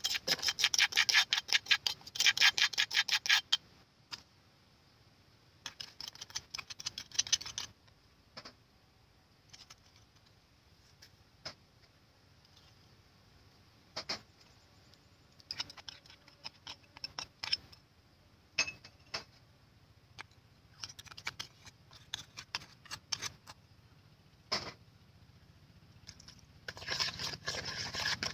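Kitchen handling sounds in a plastic basin. About three seconds of fast scraping and rubbing come first. Then scattered clicks and taps follow as a spoon adds seasonings against the plastic. Dense hand-mixing of wet ingredients starts near the end.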